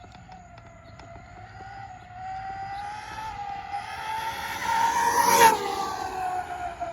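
Traxxas Maxx RC monster truck on a 4S LiPo making a speed pass. Its high motor and drivetrain whine climbs in pitch and loudness as it comes in, is loudest as it passes about five and a half seconds in, then drops in pitch as it moves away.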